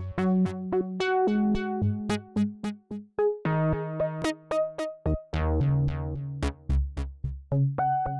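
Instrumental background music: a melody of short, quickly fading notes over held bass notes.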